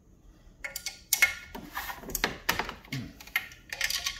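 A metal wrench clicking and clinking on the steel bolts of a pool booster pump's front housing as the bolts are worked loose. It is an irregular run of sharp clicks that starts under a second in.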